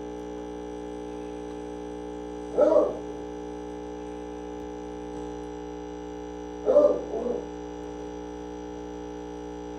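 Breville Barista Express's vibratory pump humming steadily while it pulls an espresso shot at a good pressure, with the gauge in the blue range. Two brief, louder voice-like sounds come about four seconds apart.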